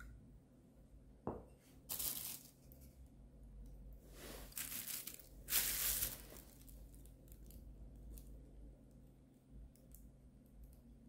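Wide flat brush stirring gesso thinned with water in a ceramic bowl: scratchy swishes of the bristles through the gesso and against the bowl, three louder strokes in the first half, then lighter faint taps and scrapes. A single sharp knock sounds about a second in.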